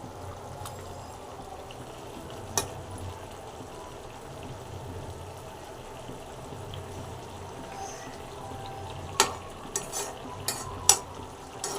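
Egg curry simmering in a kadai, a steady bubbling sizzle, with a spoon knocking against the pan once about two and a half seconds in and several times near the end as the boiled eggs are turned.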